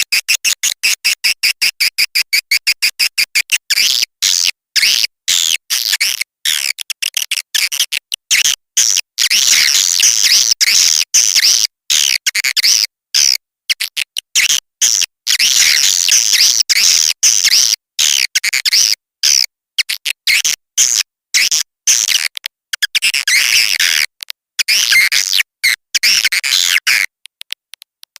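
Swiftlet lure call recording. It opens with a fast train of clicks, then runs into dense high twittering chirps broken by short gaps, with clicks again near the end.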